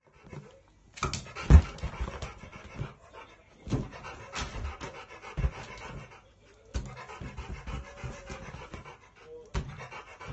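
Rottweiler panting, with several sharp knocks scattered through it, the loudest about a second and a half in.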